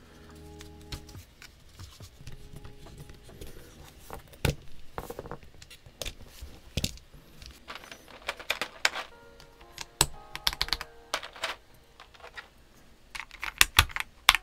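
Sharp plastic clicks as keycaps are pressed onto the switches of a GAS67 mechanical keyboard kit. Near the end comes a quick flurry of keystrokes on the finished board, which is modded with PE foam and one layer of tape for a clacky sound. Soft background music plays throughout.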